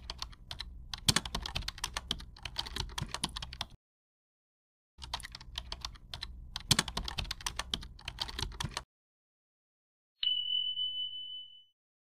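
Computer keyboard typing sound effect in two runs of rapid clicks, each about four seconds long, followed about a second and a half later by a single bright ding that rings for about a second and a half as the correct answer is ticked.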